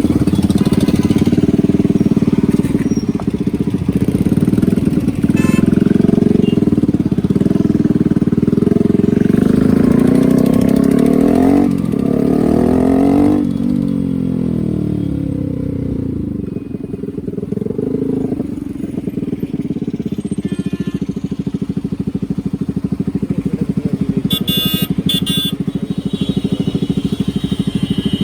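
Yamaha R15's 150cc single-cylinder four-stroke engine running under way, its pitch rising under acceleration from about ten seconds in, then dropping away and settling into a lower, steadier run.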